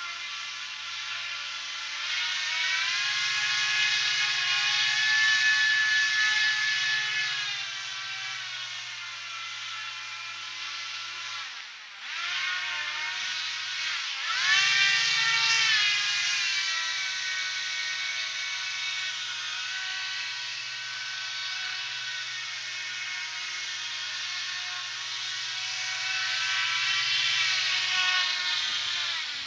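Electric motors and propellers of an RC airship whining, the pitch rising and falling as the throttle changes, with a brief dropout about twelve seconds in. The motors cut off near the end as the airship lands.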